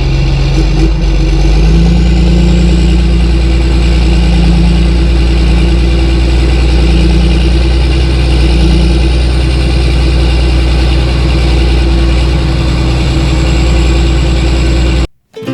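An engine running steadily and loudly. It picks up slightly about two seconds in, then cuts off abruptly near the end.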